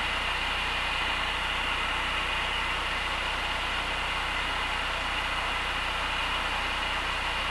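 Steady drone of a Cessna 172's engine and propeller heard inside the cockpit on final approach, even and unchanging throughout.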